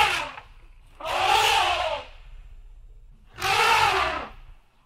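Elephant trumpeting: one call fades out just after the start, then two more loud calls follow, each about a second long and a little over two seconds apart.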